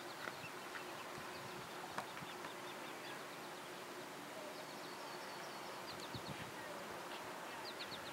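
Faint outdoor wildlife sounds: several runs of quick, high-pitched chirping trills over a steady soft hiss.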